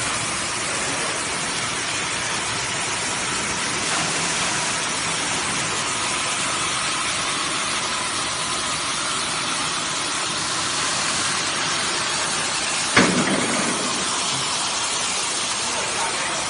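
Steady hiss of a row of gas cutting torches on a multi-torch CNC flame-cutting machine burning through steel plate. One sharp knock sounds late on.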